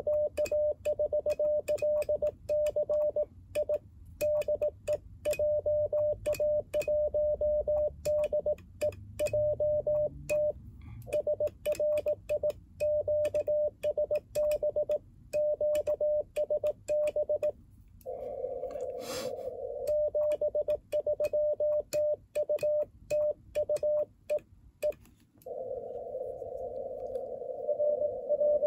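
Morse code (CW) tone of about 600 Hz keyed in dots and dashes, heard from an Icom IC-705 transceiver with hiss in its narrow CW filter, during an amateur radio exchange on 28 MHz. Near the end the keying gives way to steady hiss, with the signal fading out (QSB). There is a short noise about two-thirds of the way in.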